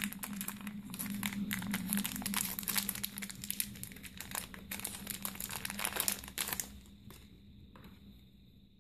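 Clear plastic bag crinkling and rustling as earphones are pulled out of it. The crinkling is dense for about six and a half seconds, then dies away, leaving only a faint steady low hum.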